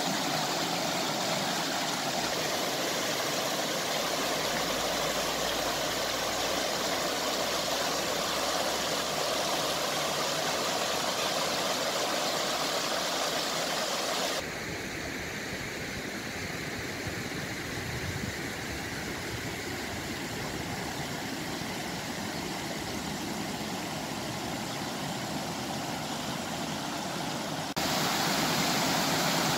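Shallow river water rushing steadily over a low weir. The sound turns duller and quieter about halfway through and comes back brighter near the end.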